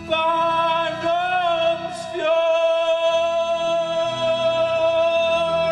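Male vocalist singing a revue song over instrumental accompaniment: a short phrase, then one long held note from a little past two seconds in.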